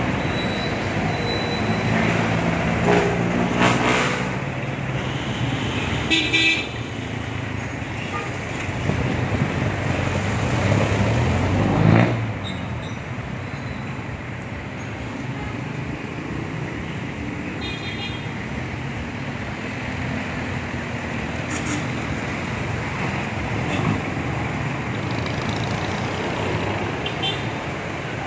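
Street traffic: motor vehicles passing on the road, one loudly about twelve seconds in, with several short horn toots.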